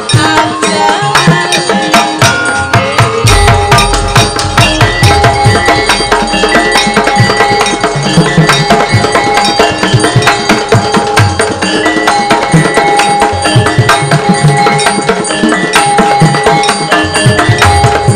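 Javanese gamelan playing lively dance music: a kendang hand drum beats quick strokes over the steady ringing tones of the metallophones and gongs.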